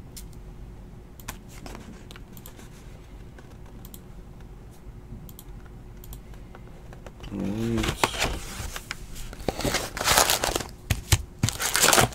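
Faint, scattered clicks like computer keyboard typing. A short vocal hum about seven seconds in, then loud, irregular crinkling and tearing from about eight seconds as a 2017-18 Donruss Basketball box is opened and its foil card packs are pulled out.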